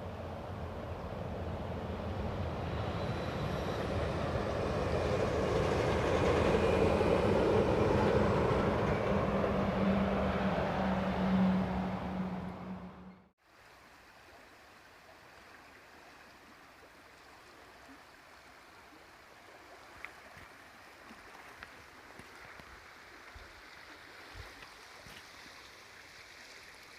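A passing motor vehicle with a steady low hum that swells over about ten seconds, then cuts off abruptly about halfway through. After the cut, a river's steady, quiet rush.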